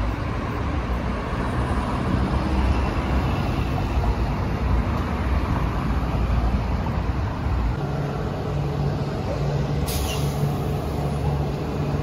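City road traffic: cars and a taxi driving past with a steady rumble. From about eight seconds in a bus engine idles with a low hum, and about ten seconds in there is a short hiss of air brakes.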